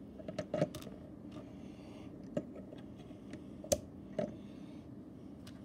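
Plastic Lego pieces clicking as they are handled and pressed onto the model: a few sharp, scattered clicks, the loudest about two-thirds of the way through.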